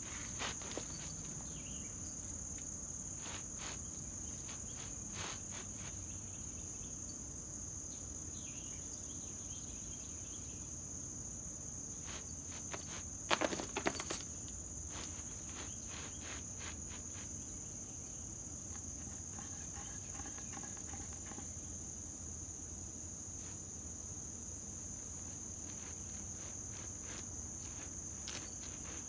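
Steady high-pitched insect chorus droning throughout, with scattered scratches and rustles from a cat clawing and pawing at a woven rug. A louder flurry of scratching comes about halfway through.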